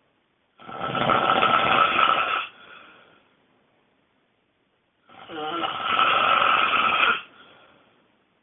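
A person snoring extremely loudly: two long snores, each about two seconds, with a quieter tail after each and a pause of a few seconds between them.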